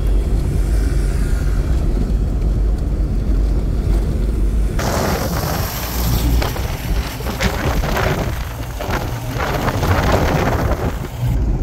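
Steady low road and engine rumble of a moving car. About five seconds in, a loud rush of wind on the microphone starts suddenly, then cuts off near the end.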